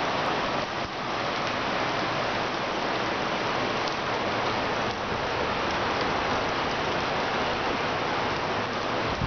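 Heavy rain falling steadily in a storm, an even, constant hiss with no break.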